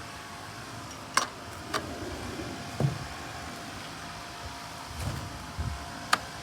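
A few sharp clicks and a knock over a steady background hum, from handling the lawnmower's dipstick and oil bottle while checking the oil level.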